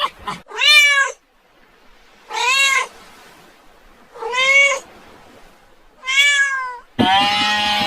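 Domestic cat meowing four times, evenly spaced, each call under a second long and arching up then down in pitch. A different, longer call begins just before the end.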